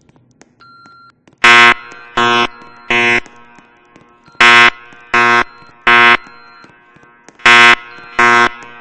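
Fire alarm horn sounding the temporal-three evacuation pattern: three harsh, loud half-second blasts, a pause, then the next set of three, heard three times. A faint short tone comes just before the first blasts.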